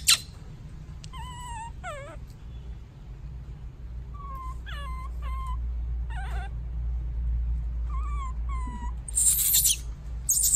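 Baby monkey crying with short squeaky calls, each bending in pitch, and a louder harsh cry near the end. These are the distress calls of an infant monkey left on its own.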